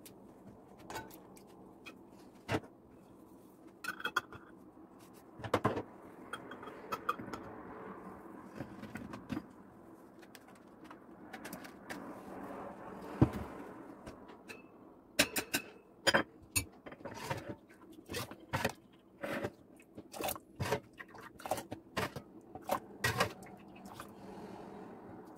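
Kitchen clatter of jarring hot cherry jam: a metal ladle clinking and scraping against an aluminium pot, a plastic funnel and glass jars, with glass jars knocked and set down on the counter. The sharp, irregular clinks come thickest in the second half.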